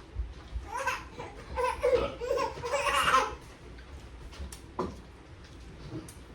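A person laughing for about two seconds, then trailing off into quieter sounds.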